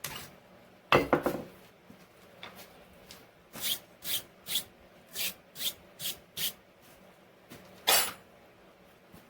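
Short scraping strokes of hand shaping or finishing work, about two a second in a run through the middle, with two louder scrapes near the start and one near the end.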